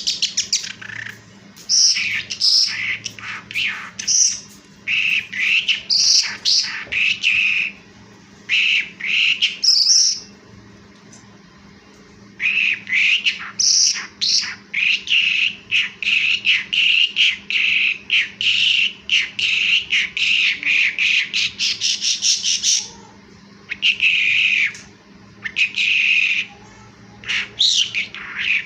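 Skylark singing: rapid chirping and trilling phrases broken by short pauses, then one long unbroken run of song lasting about ten seconds from around the middle.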